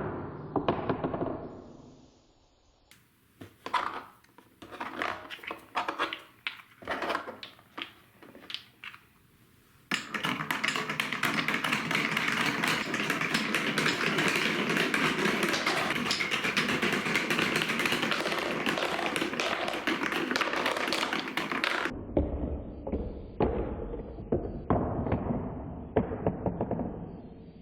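Marbles rolling and clacking along a plastic TrixTrack marble run: scattered taps and knocks at first, then about ten seconds in a dense, steady rolling rattle of many marbles at once that stops abruptly about twelve seconds later, followed by more taps over a low rumble.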